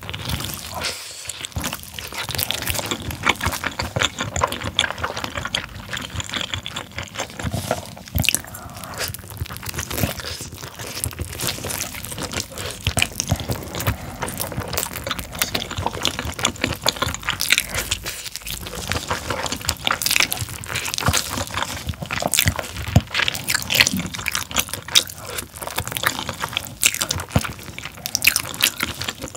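Close-miked wet eating sounds of someone gnawing and sucking the sticky, gelatinous meat and skin off a whole pork tail: a dense, irregular run of small wet clicks and smacks from the mouth.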